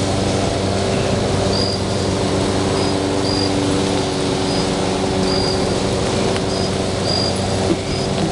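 Gunpowder-packed plastic Rubik's cube burning with a steady loud rushing hiss and a low hum, short high chirps scattered over it.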